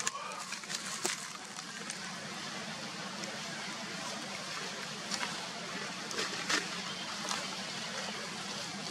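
Steady outdoor background hiss, with a few short sharp crackles about a second in and again between five and seven and a half seconds in.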